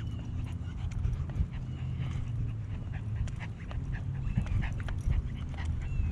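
Footsteps on an asphalt path, heard as a run of short ticks, with a Yorkie terrier panting as it trots along on its leash.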